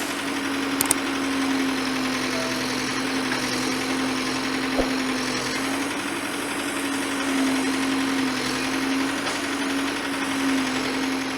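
Excavator engine running steadily with an even hum, with a couple of small clicks in the first second and a single short knock about five seconds in.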